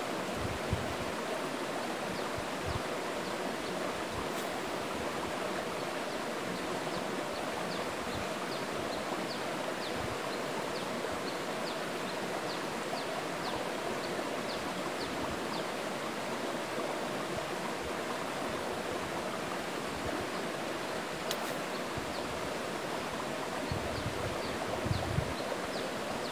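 Steady rushing of a shallow river flowing over rocks, with faint short high chirps repeating every second or so and some low rumbling near the end.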